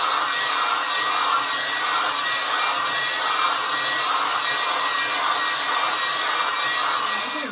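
Handheld hair dryer running steadily, a loud rush of air with a thin steady whine over it, as it is worked over damp hair; it stops right at the end.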